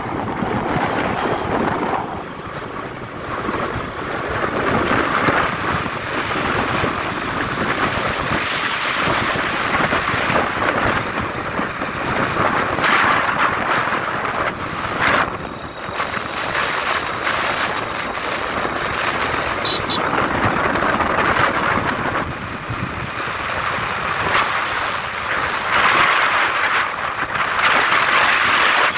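Wind rushing over the microphone on a moving motorcycle, mixed with road and engine noise, swelling and fading in gusts.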